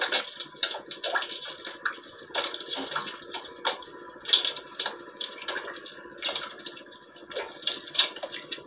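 Sea water splashing and lapping against the hull of a small outrigger fishing boat in short, irregular splashes, several a second.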